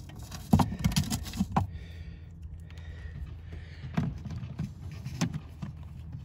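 Sharp clicks and knocks as a cordless drill/driver and wood screws are handled against a plastic fuse block being fastened to particle board: a quick cluster about a second in, then single knocks near 4 and 5 seconds. A steady low hum runs underneath.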